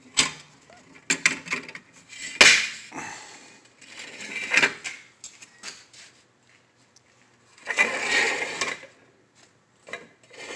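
Steel parts clanking and knocking as they are handled: several sharp metal hits, the loudest about two and a half seconds in, with short rattling, scraping stretches between them.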